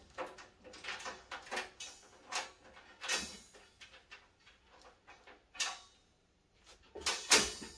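Irregular knocks, clicks and clunks of metal equipment being handled, most likely the welding trolley and its gear, with louder knocks about three seconds in, past the middle and near the end.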